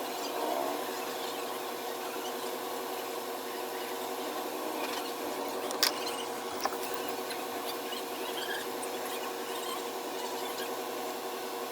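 Steady whirring hum of a small electric blower motor on a phone-repair bench, with two light sharp clicks about halfway through.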